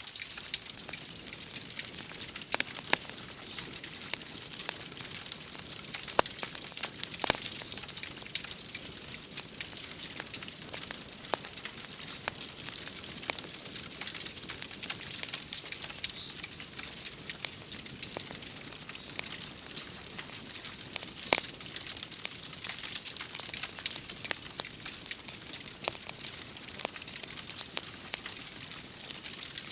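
Wood fire crackling in a fireplace: irregular sharp pops and snaps over a steady hiss.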